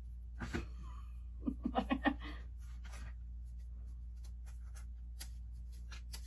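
Light rustling, scattered clicks and taps of hands handling craft materials, plastic eggs and dried moss, over a steady low hum. A short run of vocal sounds about a second and a half in is the loudest thing.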